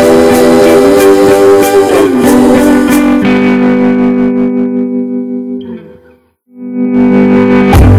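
Background music with sustained guitar chords that fades out about three quarters of the way through; after a brief silence another music track starts near the end.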